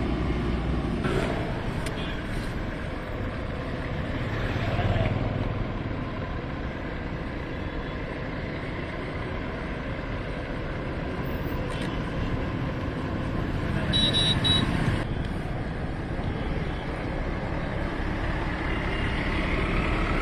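Road traffic passing on a wet highway: trucks and buses driving by, with a short, louder high-pitched sound about two-thirds of the way through.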